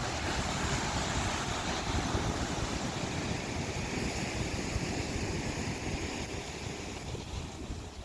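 Ocean surf washing onto the shore, a steady rushing that eases near the end, with wind gusting on the microphone.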